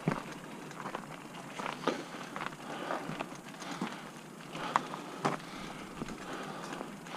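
Mountain bike riding over a rough trail: tyres crunching on dirt and stones, with uneven knocks and rattles from the bike. The sharpest knocks come about two seconds in and twice around five seconds in.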